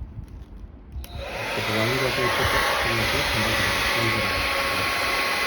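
Ikonic Ultra Light 2000 W hair dryer switched on with a click about a second in, its fan spinning up into a steady rush of blown air with a steady whine.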